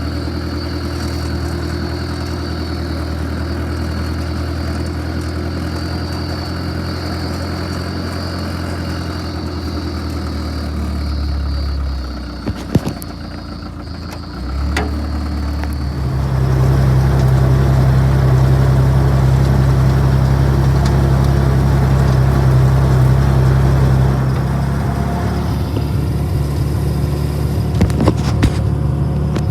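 Clarktor tug's engine running steadily at a low idle. About twelve seconds in it dips, with a couple of sharp knocks. It picks up again and runs louder and faster for about eight seconds, then eases back down.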